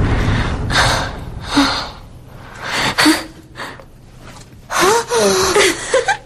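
A person gasping and breathing hard, with several short, sharp breaths, then a brief voiced laugh near the end.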